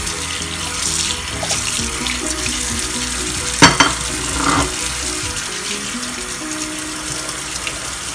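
Kitchen tap running onto blanched pork ribs in a stainless-steel mesh colander as they are rinsed by hand, with a sharp knock about three and a half seconds in.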